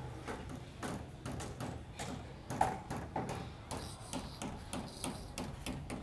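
Footsteps walking at an even pace on a paved brick path, about two steps a second, with one brief louder sound about two and a half seconds in.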